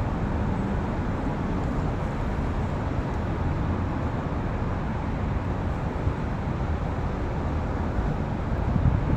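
Steady background rumble of traffic noise, even throughout, with no single event standing out.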